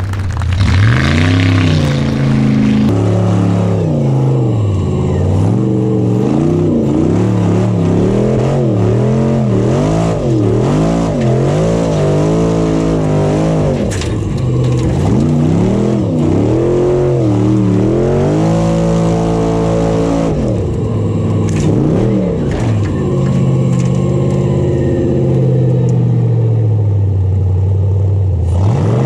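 Unlimited-class Formula Offroad buggy's engine revving hard, the pitch sweeping up and down again and again, every second or two, as the throttle is worked on steep dirt climbs.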